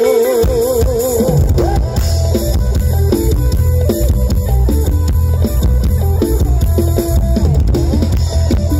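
Loud live mor lam band music over a stage PA: drum kit and heavy bass under a plucked melody line, opening with a wavering held note.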